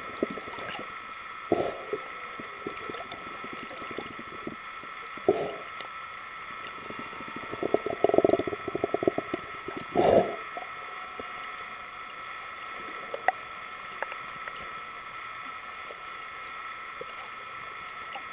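Underwater sound: a steady high hum with a few short bursts of bubbling, crackling noise, the longest a rapid crackling run about eight seconds in.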